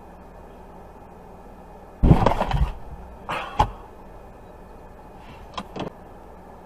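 A collision heard from inside a stopped car: a loud crunching impact about two seconds in, a smaller knock about a second later, and a couple of faint clicks near the end, over the steady hum of the car's cabin.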